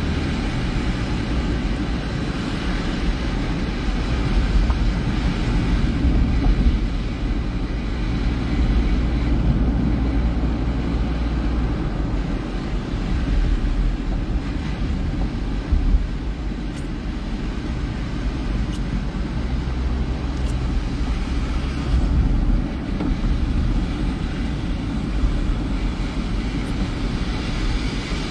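Steady in-cabin noise of a car driving: low rumble of the engine and of tyres on a wet road, with a brief bump about sixteen seconds in.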